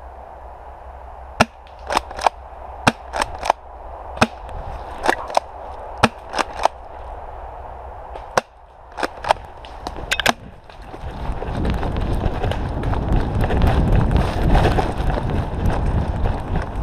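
Airsoft guns firing: about eighteen sharp pops at uneven spacing, some in quick pairs and triplets. After about ten seconds they stop and give way to rushing wind on the microphone and rustling footsteps as the wearer runs.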